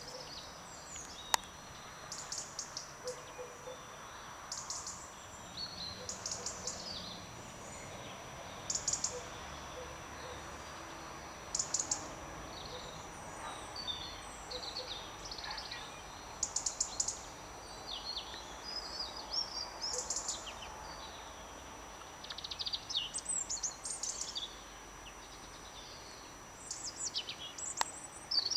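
Small birds chirping in short scattered bursts over a steady outdoor background hiss, with a thin constant high-pitched tone underneath. A single sharp click about a second in.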